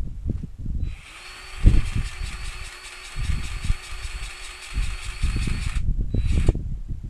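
A small electric power-tool motor runs steadily for about five seconds, with a fine rapid pulsing in its whine, then gives one short second burst. Irregular low thumps of rumble sound underneath.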